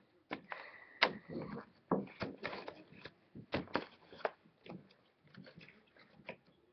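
Irregular soft clicks, knocks and rustles of handling and movement close to the microphone, with no steady sound between them.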